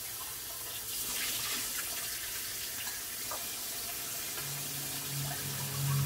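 Steady rushing, hissing noise like water running from a tap. A low steady hum comes in about three-quarters of the way through.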